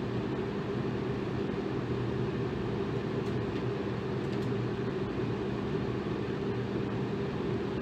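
Electric fan running steadily: an even airy rush over a low, constant hum from the motor.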